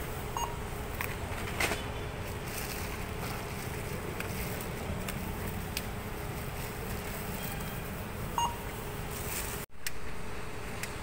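Supermarket background noise with two short electronic beeps about eight seconds apart and a faint steady hum.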